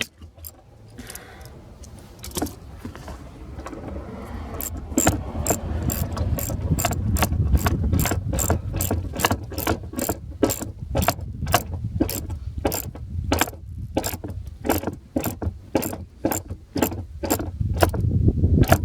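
Hand ratchet wrench clicking steadily as a fastener is turned, a run of sharp clicks about two to three a second that starts a few seconds in, over a low rumble of handling noise.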